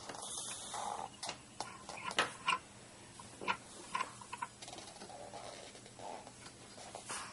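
Marker squeaking and clicking on paper as lines are drawn: short, irregular ticks, with soft scratchy strokes in between.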